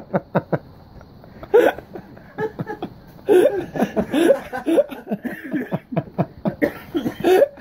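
Men laughing in repeated short bursts, with a few quick clicks in the first half-second.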